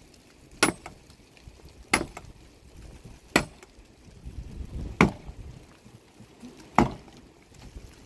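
Axe chopping into a dry, weathered fallen log: five sharp, separate blows, one every one and a half seconds or so.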